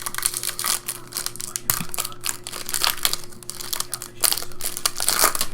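Foil trading-card pack wrappers crinkling and crackling as they are torn open and handled, a dense run of small sharp crackles with no pauses.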